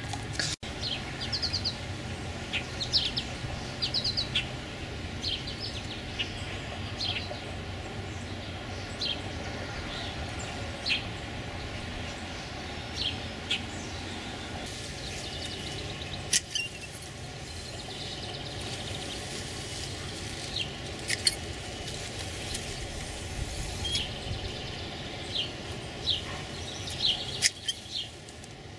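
Small birds chirping outdoors, short high calls scattered every second or two, over a steady low background hum.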